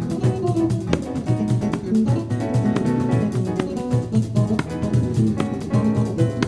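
Live Brazilian instrumental jazz band playing: electric bass, guitar, keyboards, drum kit and pandeiro together, with a steady groove of percussion strikes under the pitched instruments.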